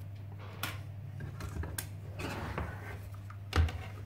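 Stripped plastic laptop base being handled and turned on a wooden desk: a few light clicks and rattles, then a louder knock about three and a half seconds in.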